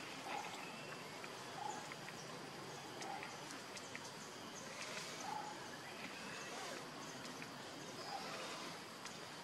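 Outdoor ambience: a steady hiss with faint short chirps every second or two and a few small clicks.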